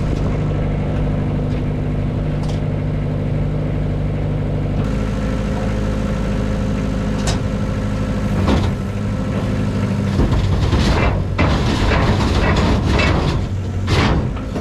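Excavator engine running steadily, stepping up in speed about five seconds in as the bucket is worked down into the truck bed. From about ten seconds on, irregular bursts of noise come and go over the engine.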